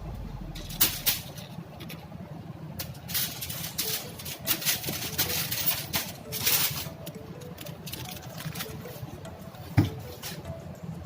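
Irregular clicks, knocks and rustles of kitchen handling during food preparation, with one sharp knock near the end that is the loudest.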